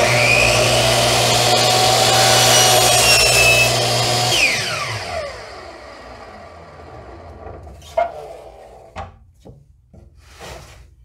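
DeWalt compound miter saw (chop saw) running and crosscutting a wooden board for about four seconds. It is then switched off, and the motor whine falls in pitch as the blade spins down.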